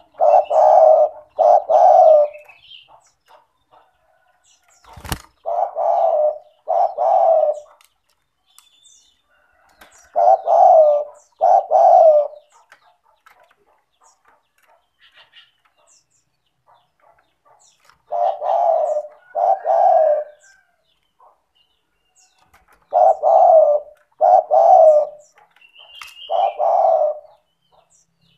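Spotted dove (tekukur) cooing: low, loud coos mostly in pairs, each phrase repeated every few seconds, with a three-coo phrase near the end. Faint high chirps of small birds and one sharp click sound in the gaps.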